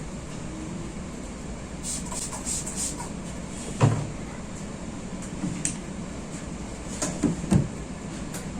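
Hands massaging a head: a short run of crackly rubbing through the hair about two seconds in, then a few dull slaps, the loudest about four seconds in and two more near the end, over a steady background hum.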